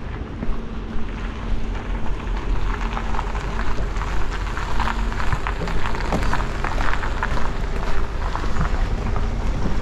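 Wind buffeting the microphone as a steady low rumble, with a faint steady hum through the first half and dense crackling noise through the middle and latter part.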